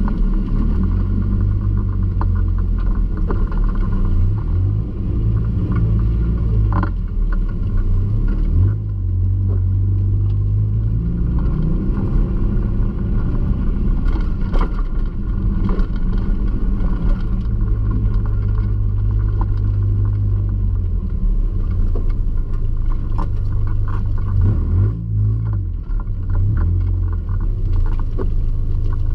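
Mazda MX-5's 1.8-litre four-cylinder engine heard from inside the cabin, its revs rising and falling repeatedly as the car is driven in drifts.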